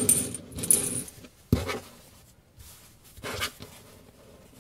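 Paper tissues being pulled out and handled, with rustling in the first second, a sharp short rustle about one and a half seconds in, and a fainter one a little after three seconds.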